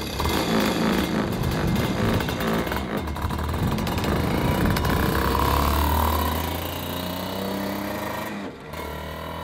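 125 cc two-stroke shifter kart engine running and revving as the kart pulls away, getting quieter over the last few seconds as it drives off.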